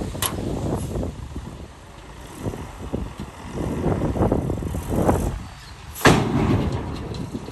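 Heavy earthmoving machinery at work: diesel engines rumbling, swelling and easing under load, with a sharp metallic bang about six seconds in.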